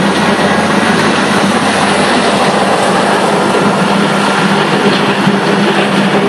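Volvo high-reach waste-handling excavator running steadily and loud: an even mechanical rush with a constant low hum from the diesel engine.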